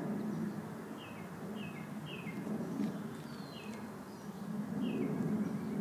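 A small bird chirping: short, downward-sliding notes repeated in small groups of about two a second, over low background noise that grows louder near the end.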